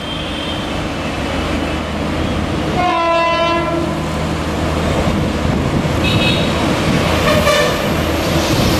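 An electric passenger train hauling double-decker coaches approaches, its rumble growing steadily louder. The locomotive horn sounds a blast about three seconds in, followed by shorter toots later.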